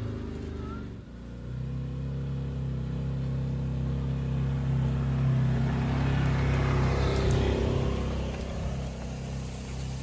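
Can-Am Defender side-by-side's engine running steadily while it tows a cedar log and a limbed treetop. It grows louder as it drives past close, about six to eight seconds in, with a rushing noise of dragged branches over the engine.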